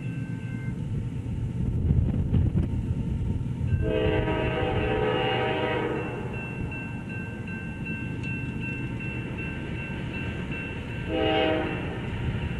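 Diesel locomotive's multi-chime horn blowing from an approaching train: one long blast about four seconds in and a short blast near the end, over a low steady rumble.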